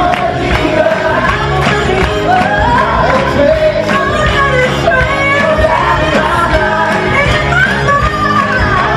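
Live musical-theatre cast singing an upbeat number with the band, over a steady beat, heard from the audience in a large theatre hall.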